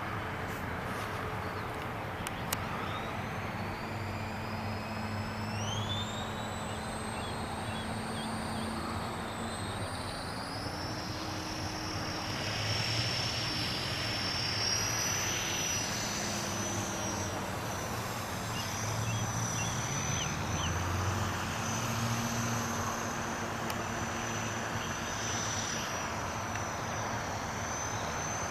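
Small radio-controlled model airplane flying overhead. Its motor and propeller give a high whine that climbs in pitch in steps over the first ten seconds as the throttle opens, then holds steady.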